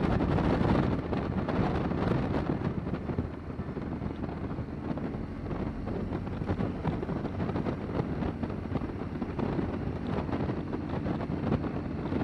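Motorcycle engine running under way, with wind rushing over the microphone. It is a little louder in the first second or so, then steady.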